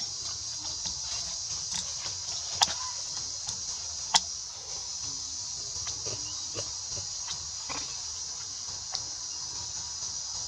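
Steady high-pitched drone of insects, with a few sharp clicks; the two loudest come about two and a half and four seconds in.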